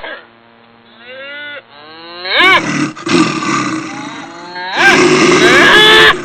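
Several animal calls and roars layered over one another: pitched cries that rise and fall at about one and two and a half seconds in, then a loud stretch of overlapping roars and calls from about five seconds in.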